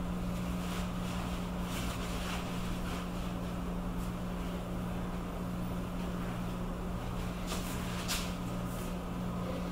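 Steady low electrical hum over background hiss (room tone), with a few faint soft taps near the end as a hand settles on the acrylic sheet.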